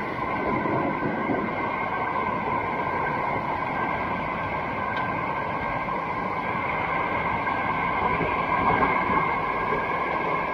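Steady rushing of a waterfall on a mountain stream, even and unbroken.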